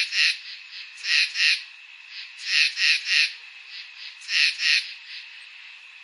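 Night chorus of calling animals. A near caller gives loud groups of two or three short pulses about every second and a half, over fainter pulses and steady calling behind.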